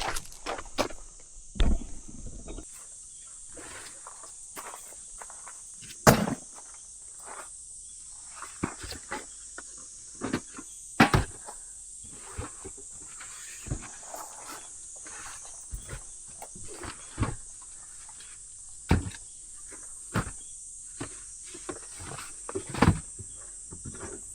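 Scattered knocks and clatters of gear being handled at a campsite, several sharp ones standing out, over a steady high-pitched insect-like hiss.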